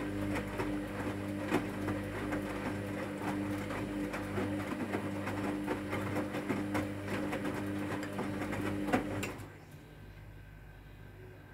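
Hotpoint WMA30 washing machine tumbling its drum in the rinse: a steady motor hum with wet laundry and water sloshing and knocking inside the drum. The tumbling stops about nine seconds in as the drum pauses.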